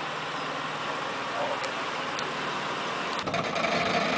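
Pickup truck engine running at low speed. About three seconds in, a louder, steady engine or machine hum with a whining tone sets in and holds.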